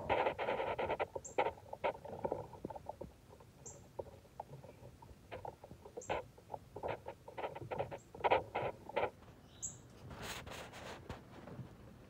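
Quick clusters of small taps and clicks as a male northern cardinal pecks and cracks seed at a plastic seed cup, with short high chips every second or two. A brief rustle comes near the end.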